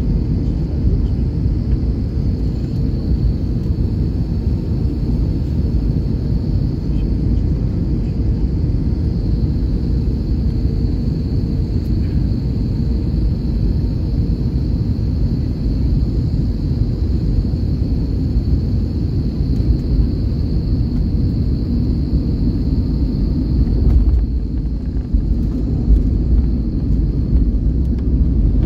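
Airbus A321 passenger-cabin noise on final approach: a steady low rumble of engines and rushing air, with a faint high whine over it. A few seconds before the end the hiss thins out and the low rumble swells for a moment.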